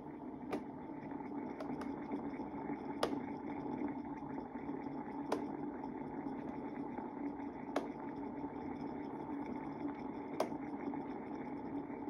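Mainstays humidifier running with a steady hum, broken by five sharp ticks about every two and a half seconds.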